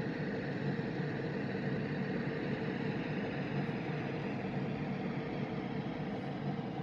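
Qukcors S3 sound machine playing one of its built-in noise sounds: a steady, even rushing noise with a faint low drone in it.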